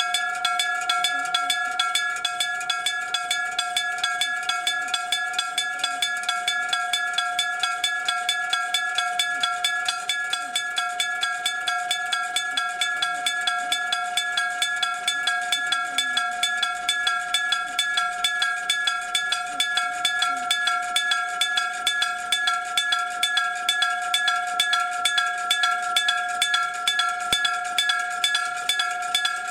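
Old electric-bell (denshō-shiki) railway level-crossing warning bell ringing continuously with rapid, even strokes, a bright metallic ring with several steady overtones.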